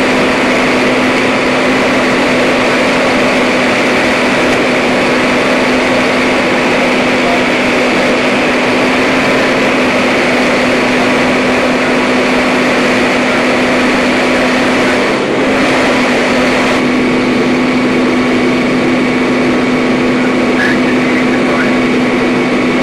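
Altec utility bucket truck's engine running steadily, a loud constant hum with a steady mechanical din over it.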